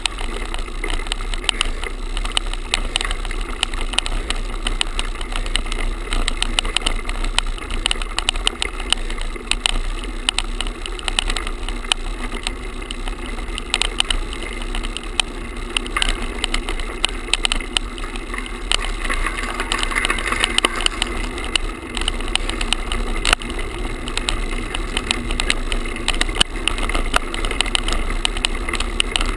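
A GoPro camera tied to a road bike's handlebar with a shoelace vibrating as the bike rides over pavement: a steady buzzing rattle with rapid clicks, the loose mount shaking against the bars.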